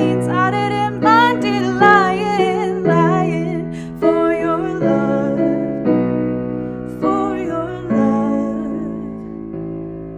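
A woman singing live with piano accompaniment, her sustained notes wavering with vibrato. Near the end the voice stops and a final piano chord rings out and fades away.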